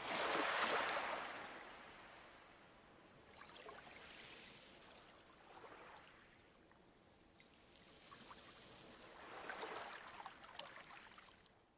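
Light waves washing onto a pebble beach: four swells of rushing water a few seconds apart, the loudest at the start, with pebbles clicking in the wash. The sound fades out near the end.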